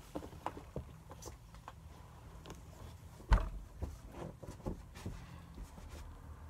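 Scattered light knocks and handling noises from someone moving about a small room, with one louder thump a little over three seconds in.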